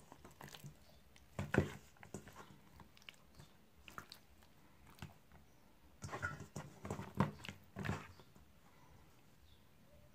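Brief, scattered handling noises from a raw whole chicken being pressed and moved about in a stainless steel bowl, in two busy stretches: about a second and a half in, and again from about six to eight seconds.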